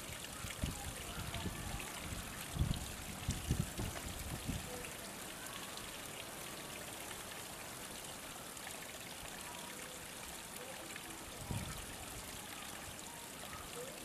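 Steady trickle of running water, with a few low bumps between about three and five seconds in.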